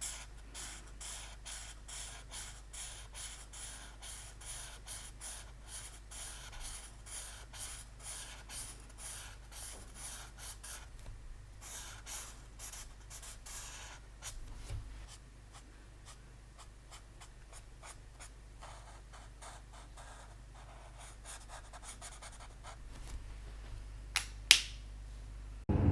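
Ink pen scratching on paper in quick repeated strokes, about two a second, as in hatching. The strokes grow fainter and sparser about halfway through, and two sharp clicks come near the end.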